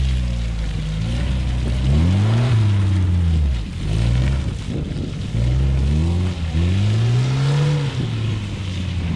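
Lada Niva's four-cylinder petrol engine revving up and dropping back twice as the 4x4 pulls through deep mud.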